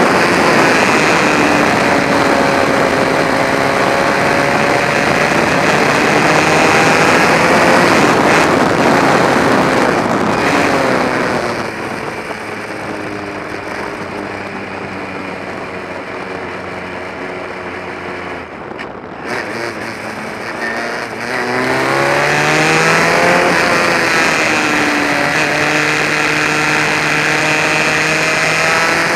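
Onboard sound of a Formula Ford racing car's engine at full throttle with wind rushing past, its pitch climbing. About halfway through it drops away quieter and falls in pitch off the throttle for a corner. Then it climbs steeply again under hard acceleration, with a gear change.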